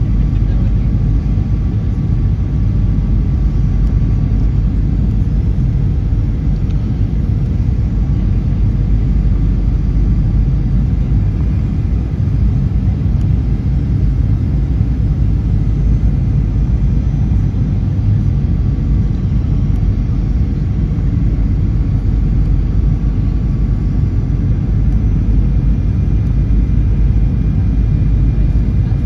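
Cabin noise of a Ryanair Boeing 737 on approach: its jet engines and the airflow over the fuselage make a steady low rumble, heard from inside the cabin.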